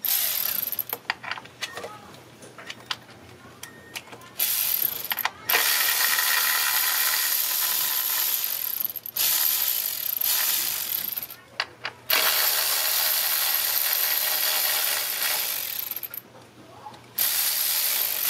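Socket ratchet wrench clicking in long, fast runs, about six of them with short pauses between, as the bolts holding the ignition coils are backed out.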